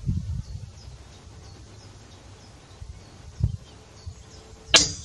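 A single sharp crack of a PCP air rifle being fired, near the end, over a steady high chirping of insects and low wind rumble on the microphone.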